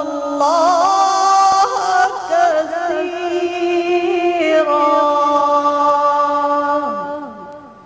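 A woman's solo voice reciting the Quran in a melodic style, without accompaniment, holding long notes with wavering ornaments. Near the end the voice glides down and fades out.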